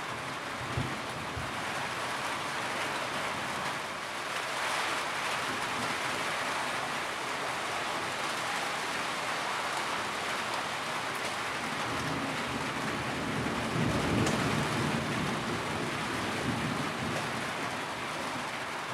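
Steady heavy rain hissing, with a low roll of thunder swelling and fading about two-thirds of the way through.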